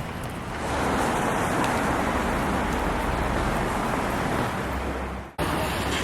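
Road traffic: a steady rush of vehicle noise that swells about a second in and holds, then cuts off abruptly near the end.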